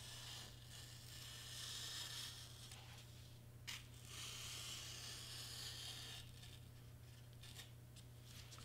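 Cricut craft knife being drawn through foam board: a faint scratchy hiss in long cutting strokes, broken by short pauses, with a small tap about midway.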